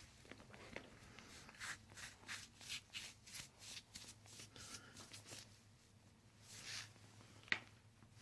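Soft rustling and brushing of a chiropractor's hands moving over a patient's back and clothing, a quick series of short strokes. A single sharp click comes near the end.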